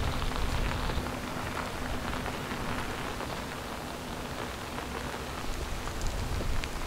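Coal-briquette fire crackling and hissing steadily, with scattered sharper pops, over a fluctuating low rumble.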